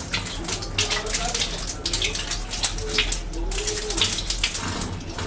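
Water boiling hard in a steel kadai with fish dumplings poaching in it: a dense, irregular bubbling and popping.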